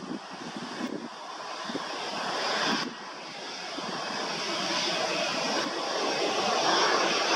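Jet engines of an easyJet Airbus A320 on the runway, a broad rushing roar growing steadily louder as the airliner rolls along. Gusts of wind buffet the microphone in the first couple of seconds.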